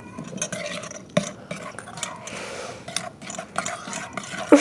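A utensil stirring clear glue slime with activator in a bowl, clicking and scraping irregularly against the bowl. The mixing is done slowly to keep the slime clear.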